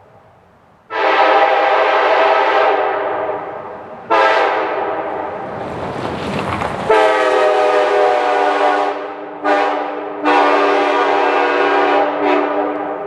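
Multi-chime air horn of the kind used on trains, sounding several chords at once in the long, long, short, long grade-crossing pattern. A burst of rushing noise comes during the second long blast.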